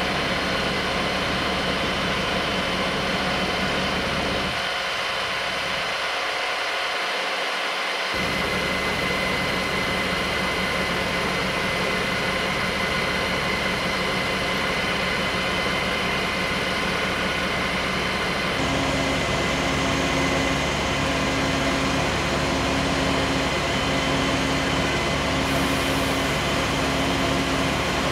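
Fire engine's diesel engine and pump running steadily, feeding hoses. In the last third a low hum pulses on and off about once a second.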